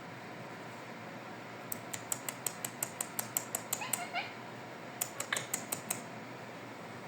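Ringneck parakeet making two quick runs of sharp clicks, about six a second, with a few faint squeaky chirps.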